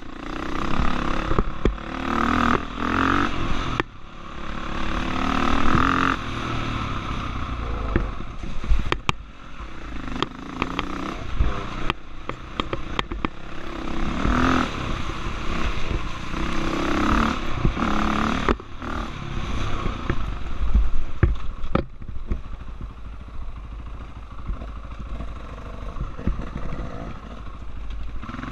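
Dirt bike engine revving up and falling back again and again as it is ridden over a rough trail. Short knocks and rattles from the bike jolting over bumps run through it.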